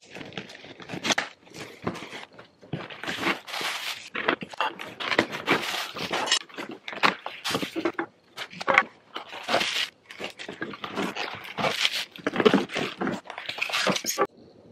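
Cardboard boxes and packaging handled and pulled apart while light bulbs and lamp parts are unpacked: a run of irregular rustles, scrapes and crinkles with small knocks.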